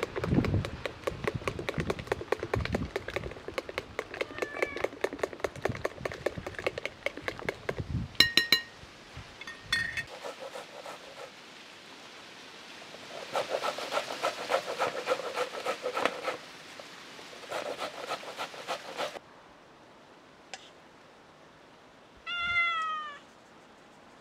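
A metal spoon beats and scrapes quickly against a glass mixing bowl. Then a red onion is grated on a metal box grater in two bursts of rasping strokes. Near the end a cat gives a single falling meow.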